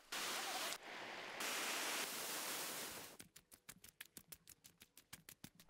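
Steady rushing hiss that cuts off and changes abruptly twice, then stops about three seconds in and gives way to rapid, even clicking, about eight clicks a second.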